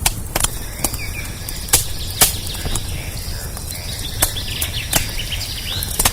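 Campfire crackling sound, with irregular sharp pops and snaps over a low steady rumble, and birds chirping faintly in the background.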